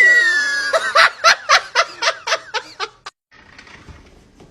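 A person laughing in a quick run of short bursts, about four a second, after a brief high squeal at the start. The laughter cuts off suddenly about three seconds in, and only faint sound follows.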